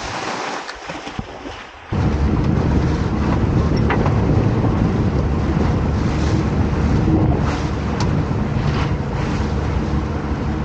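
Small waves washing on a beach, then from about two seconds in, a small aluminium boat running under outboard motor power. The motor's steady drone is mixed with wind buffeting the microphone and water rushing past the hull.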